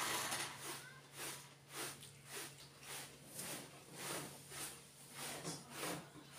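Close-up chewing of a mouthful of food with the mouth open, wet smacking about twice a second.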